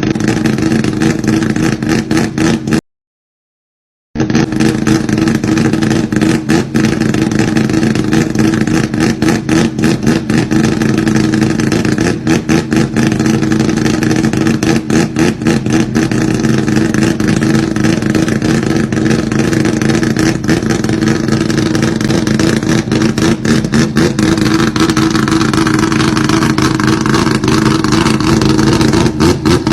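Exhaust of a rotary-engined Datsun, a Mazda Wankel swap, running steadily with a choppy, uneven pulse. The sound cuts out completely for about a second, about three seconds in.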